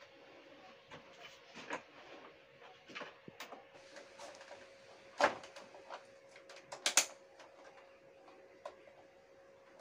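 Scattered clicks and knocks of hard parts being handled, over a faint steady hum. The sharpest knock comes about five seconds in, and a quick double knock comes about two seconds later.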